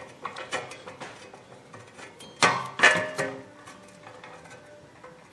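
Metal clinking and tapping of hand tools and bolts on a wheel hub as the hub's mounting bolts are started and snugged, with a louder cluster of ringing metallic knocks about two and a half seconds in.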